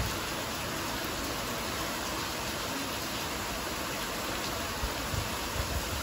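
Heavy rain falling steadily, an even hiss without a break.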